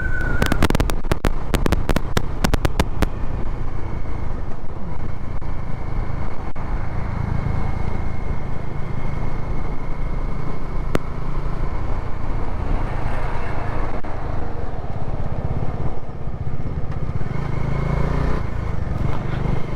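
Bajaj Dominar 400's single-cylinder engine running steadily at cruising speed, under a constant rush of wind and road noise. There is a quick run of sharp clicks in the first few seconds.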